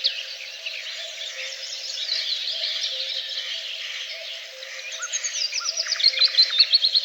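Several songbirds singing at once, with a dense mix of overlapping chirps and trills. In the second half, one bird delivers a quick run of repeated notes that step down in pitch. A faint, steady low pulsing continues underneath.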